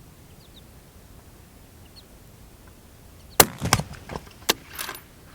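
A single shot from a fullbore target rifle about three and a half seconds in, followed over the next second and a half by several sharp clicks and clatters.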